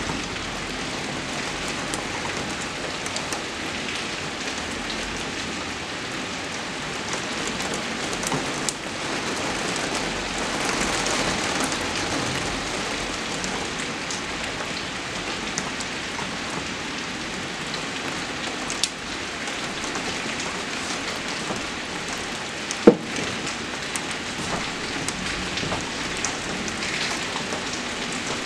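Heavy rain falling steadily, with a dense patter of individual drop taps that swells a little partway through. A single sharp click, about three-quarters of the way in, is the loudest sound.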